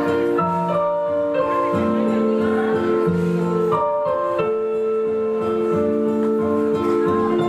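Piano music: slow, sustained chords that change about once a second.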